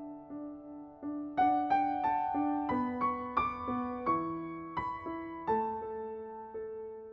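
Background music: a gentle piano melody of single struck notes in a steady rhythm, getting louder and climbing higher from about a second and a half in, then settling onto lower held notes near the end.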